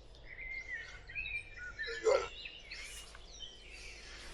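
Small birds chirping and singing, short quick calls that sweep up and down in pitch, over a faint steady outdoor background. A brief louder sound stands out about two seconds in.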